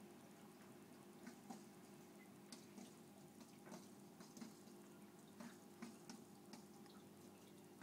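Near silence: a faint steady hum of aquarium equipment, with scattered small irregular drips and ticks of water.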